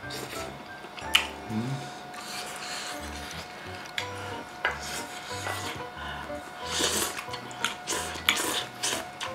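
Eating utensils clinking and scraping against dishes, with scattered sharp clinks, the loudest about a second in, over soft background music.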